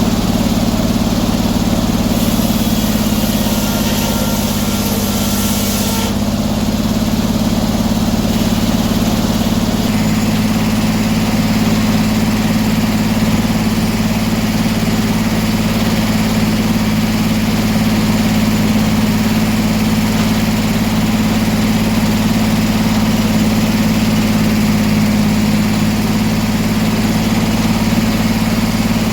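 Engine running steadily at a constant speed. About two seconds in, a higher hiss joins it for roughly four seconds.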